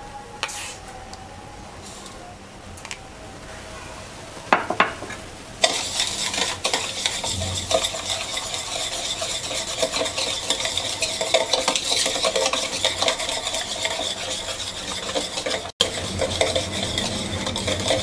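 Egg yolks and sugar being beaten by hand in a plastic bowl: after a few light knocks, fast continuous scraping and clicking of the utensil against the bowl starts about five and a half seconds in and keeps going.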